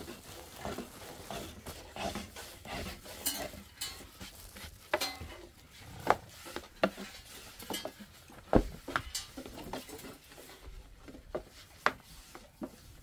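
Thin wooden rolling pin working flatbread dough on a low round wooden board, with irregular knocks and clacks of the pin against the board, the loudest about six and eight and a half seconds in.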